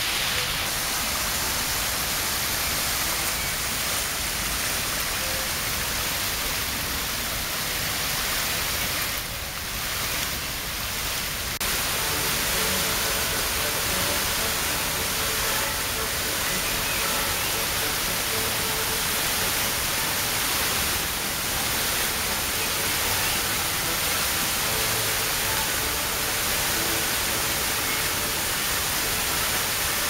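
Floodwater cascading down stone steps: the steady roar of white water, dipping briefly about nine seconds in.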